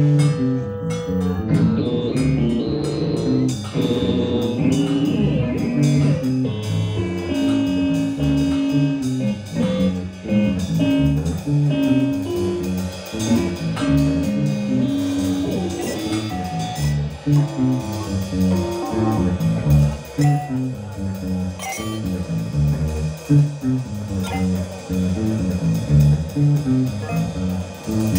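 Instrumental music: an electric bass guitar plays a busy line of short low notes, with drums behind it.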